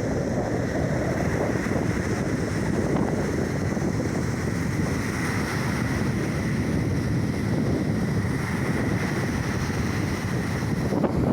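Black Sea waves and surf giving a steady rushing sound, with wind buffeting the microphone.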